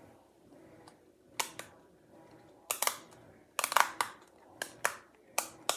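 Bubbles of a hard-shell pop-it fidget toy being pressed, making a string of short, sharp pops. The pops come at uneven intervals from about a second and a half in, some in quick pairs and a tight cluster near the middle.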